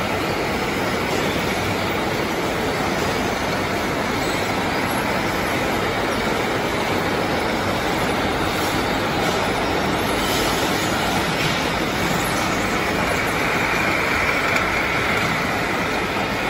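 Welding-electrode production machinery running: chain conveyors and their electric drive motors give a steady, dense mechanical noise.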